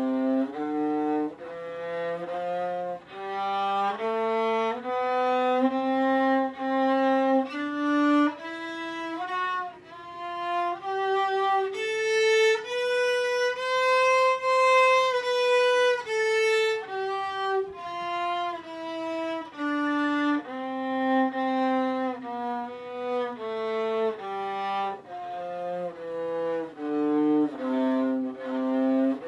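Solo violin playing a slow bowed melody note by note, climbing to a long held high note around the middle and stepping back down.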